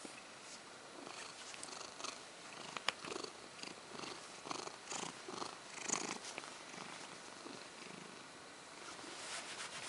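Domestic cat purring, with bedsheets rustling under a hand and a single sharp click about three seconds in.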